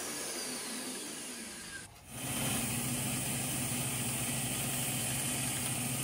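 Shopsmith Mark V motor and bandsaw running, with a faint whine that falls in pitch as the speed is turned down. About two seconds in the sound briefly drops, then the steady hum of the bandsaw running at the lower speed follows as its blade cuts a wooden strip.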